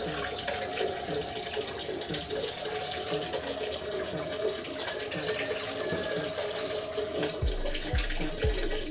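Water running steadily, as from a tap. Low thumps about twice a second come in near the end.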